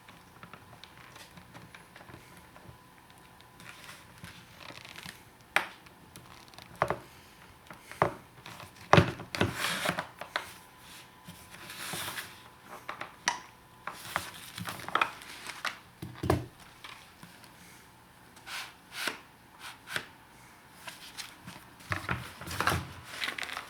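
Plastic parts of a 2005 Toyota RAV4 sun visor being pried and worked apart by hand: irregular clicks, sharp plastic snaps and short scraping and crinkling noises, the loudest snap about nine seconds in.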